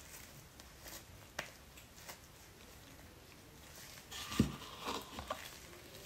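Soft handling noises of hair dyeing: a tint brush and plastic-gloved hands working wet dye, giving scattered small clicks and squishes, then a busier run of them with a louder knock about four seconds in.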